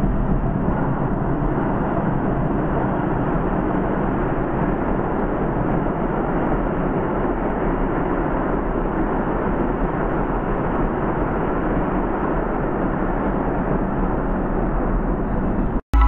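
Subway train running past, a steady noise of the cars on the rails with no change in pitch, which cuts off suddenly just before the end.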